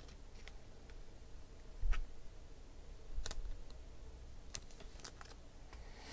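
Scattered light clicks and taps of trading cards being handled and set down on a table, with a duller knock about two seconds in.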